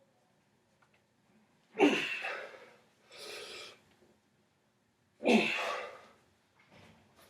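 A man's forceful huffs of breath, typical of straining at a hand-bend: two loud, sharp exhalations about three and a half seconds apart, each fading over about a second, with a softer breath between.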